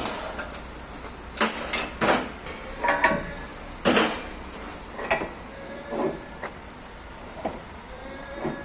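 A series of irregular knocks and clanks, about a dozen over several seconds, some with a short ringing tone, over a low steady hum.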